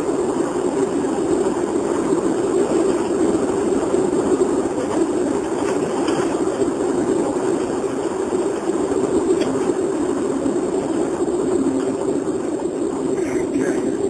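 Steady road and engine noise inside the cabin of a 1996 Daewoo Cielo on the move, picked up by a mobile phone.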